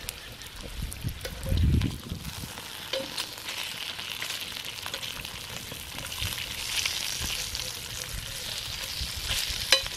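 Bacon sizzling steadily in a skillet, with metal tongs clicking a few times against the pan as the strips are turned. A low thump comes about a second and a half in.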